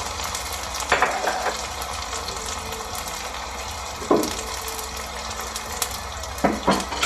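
Shredded carrots frying in hot oil in a wok, a steady sizzle, with a few brief louder sounds standing out about a second in, about four seconds in and near the end.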